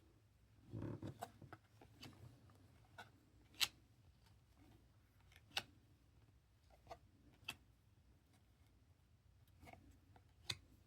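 Faint handling of chrome trading cards: scattered soft clicks and ticks as cards are flipped and set down, with a brief rustle about a second in.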